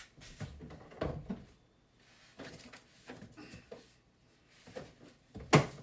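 Scattered knocks and clatter of kitchen items being handled, with one sharp knock near the end, as scraps are cleared off a cutting board into the trash.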